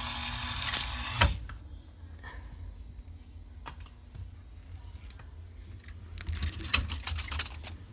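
Claw machine's small electric drive motors whirring, then stopping about a second in. After that come light scattered clicks and rattles, thickest near the end.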